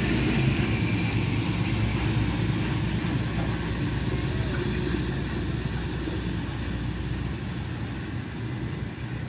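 Heavy diesel engines of a CAT hydraulic excavator at work and a dump truck driving past, running steadily, the sound easing off gradually over the last few seconds.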